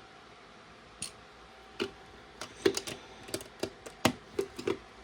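Small plastic LEGO plates clicking and tapping as they are handled and pressed into place: about ten short, sharp clicks at uneven intervals, clustered in the second half.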